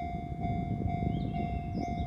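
Japanese level-crossing warning bell ringing in a steady electronic tone, about two strokes a second, over the low rumble of a Kintetsu train passing over the crossing.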